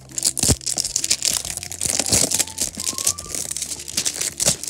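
Clear plastic wrapping on a toy box being crinkled and torn open by hand: a dense run of crackling with many sharp snaps.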